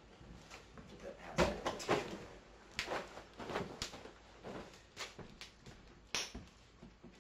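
A string of irregular knocks and clicks, the loudest about a second and a half in and again near the end.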